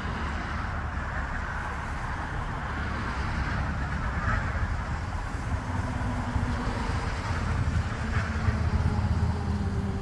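Steady low outdoor rumble with no clear chicken calls; a faint tone slides slowly down in pitch near the end.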